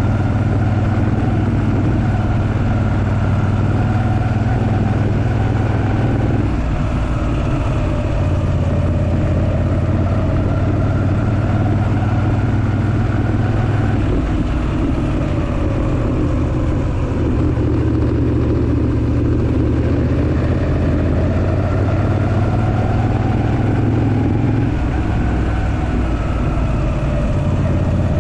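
Moto Guzzi V7 III Racer's air-cooled transverse V-twin running on the move. The engine note steps down and climbs again a few times as the revs change, over a steady rush of road and wind noise.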